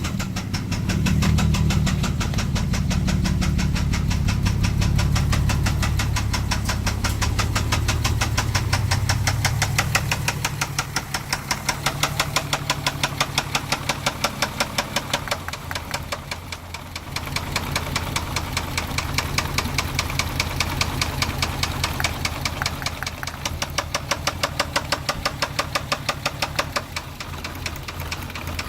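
Volkswagen Jetta MK4's VR6 engine running with a fast, steady, rhythmic knock throughout, the sign of a spun bearing. The running is fuller and louder for the first ten seconds or so, then settles lower, with a brief dip past the midpoint.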